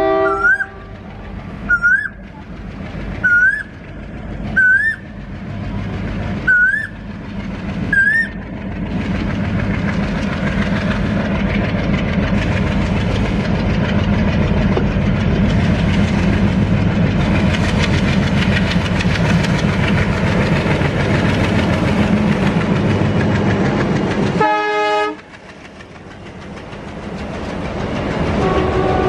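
Diesel locomotive hauling a double-stack container train: its multi-tone horn ends at the start, a string of short rising whistles sounds about every second and a half for the first eight seconds, then the engine and wagons build into a steady, loud rumble as the train passes. After an abrupt drop, the container wagons rolling past build up again with clickety-clack, and faint horn tones come back near the end.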